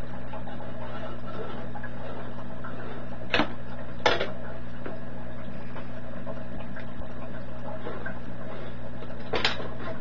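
Steady low hum throughout, with a few sharp clicks and knocks of a steel combination square being set against and moved on a sheet-metal box: two about three and four seconds in, and more near the end.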